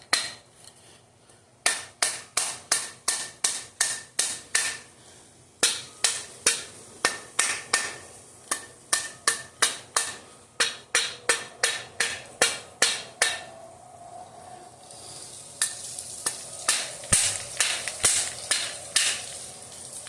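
Runs of light hammer taps on a connecting rod that is still a tight fit after being resized, about two taps a second with short pauses between runs.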